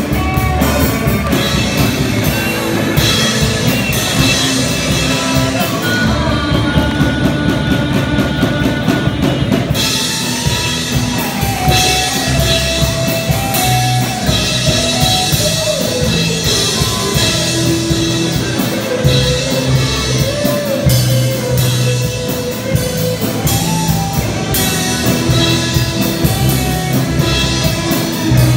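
Student rock band playing live: drum kit keeping a steady beat under electric guitars and bass guitar.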